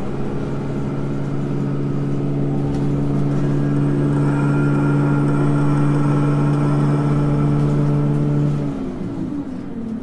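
A bus engine running steadily at one pitch, then winding down, falling in pitch and getting quieter about nine seconds in.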